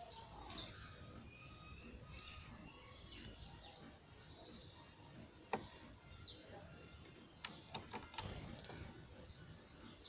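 Birds chirping, with short high calls and a couple of downward-sweeping notes, and a few sharp taps about five and a half and seven and a half seconds in.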